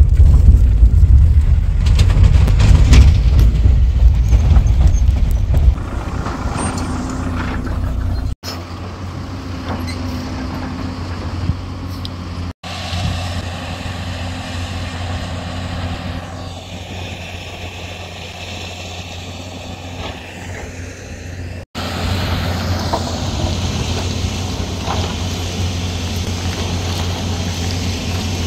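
Vehicle engine and rough dirt-road rumble heard from inside the cabin, loud and jolting for the first six seconds or so. It then drops to a quieter, steady engine drone that carries on through several abrupt cuts.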